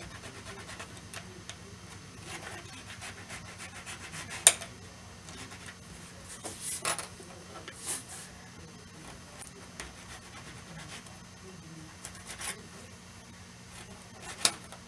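Small hand file scraping in short, scattered strokes on styrene plastic glued into a gap in model railroad rail, trimming it flush. One sharp click about four and a half seconds in is the loudest sound.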